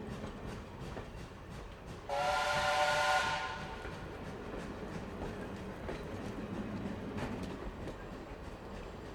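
A train running with a steady rumble and faint rhythmic wheel clicks. About two seconds in it sounds its horn once: a loud blast of several tones together, lasting about a second before fading back into the running noise.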